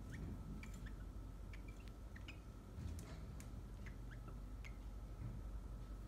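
Cockatiel making short, soft chirps, about a dozen scattered through the few seconds, several rising quickly in pitch, over a faint steady hum.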